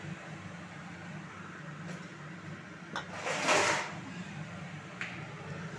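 Cookware being handled on a gas stove: a click about three seconds in, then a short scraping slide of metal, and a light knock near the end, over a steady low hum.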